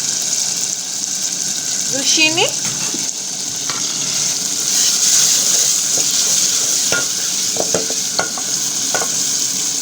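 Thick tomato-paste sauce sizzling steadily in hot oil in a pan while it is stirred, with a few short scrapes or knocks of the spoon in the second half as zucchini is worked in.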